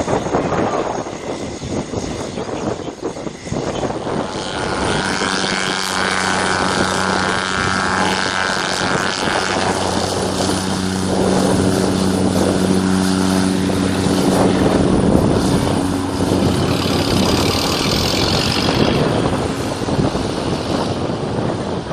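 Cessna 208 Caravan single-engine turboprop taxiing, its propeller and turbine giving a steady droning hum. It gets louder from about halfway through, with a higher turbine whine near the end as the aircraft starts its takeoff roll.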